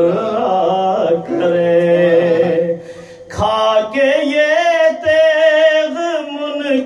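A solo male voice singing in a chanting style, with long held notes that waver, and a short break about three seconds in.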